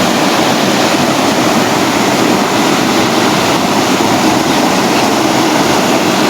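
Water of a small river waterfall rushing and splashing, a loud steady rush.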